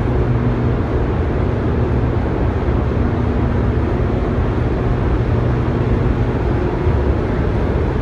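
Steady loud hum and rumble of the hydroelectric turbine-generators in the dam's powerhouse, with a low steady tone running through it.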